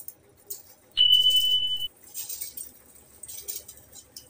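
Soaked rice and broken black urad dal poured from a steel bowl into water in an aluminium pressure cooker, giving a soft, patchy hiss of grains splashing in. About a second in, a single steady high-pitched electronic beep, the loudest sound, lasts just under a second.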